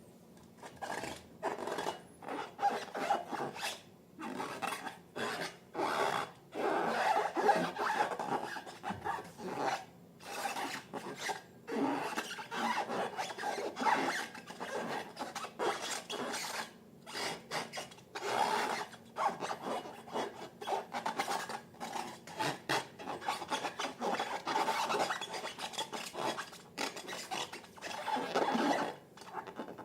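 Slime being worked and mixed, a run of irregular sticky squishing and rubbing strokes.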